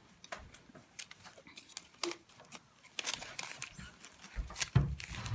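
Close-up chewing and mouth sounds of someone eating a breakfast burrito: scattered small wet clicks and soft noisy bites.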